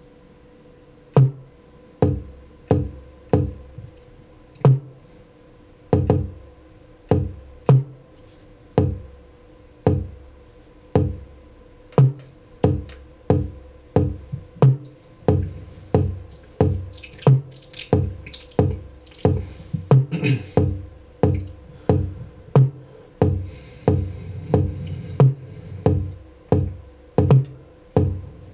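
Drum-machine-style beat of kick and snare hits over a faint steady hum: the hits begin about a second in, sparse and uneven at first, then settle into a steady, denser beat of about two hits a second.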